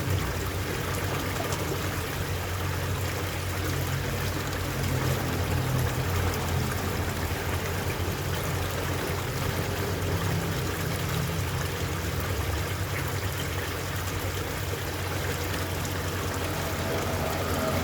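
Koi pond water running and trickling steadily, with no breaks or changes.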